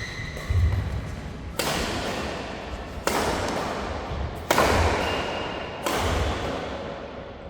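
Badminton rackets striking the shuttlecock four times, about a second and a half apart, each hit sharp and echoing away.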